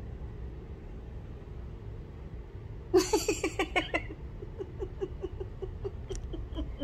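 A woman laughing. It starts about three seconds in with a loud burst, then runs on as a string of quick, softer 'ha' pulses that fade away.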